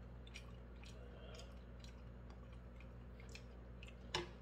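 Quiet chewing with small mouth clicks, then near the end a sharp clack as metal chopsticks strike a nonstick frying pan. A low, steady hum lies underneath.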